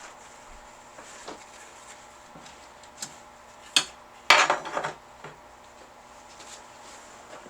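Scattered light clicks and knocks of small hard parts or tools being handled during typewriter servicing. A sharp click comes just before a brief clatter about four seconds in.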